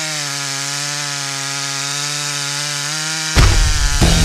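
STIHL MS 661 two-stroke chainsaw held at full throttle in a cut, running at a steady high pitch. About three and a half seconds in, a much louder, bass-heavy sound cuts in over it.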